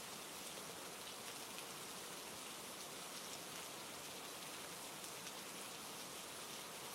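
Steady rain falling, a soft even hiss with faint patter of drops.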